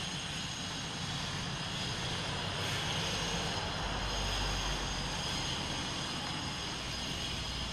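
A pickup truck's engine running at low speed as it pulls slowly across a parking lot, with a low rumble that swells about four seconds in.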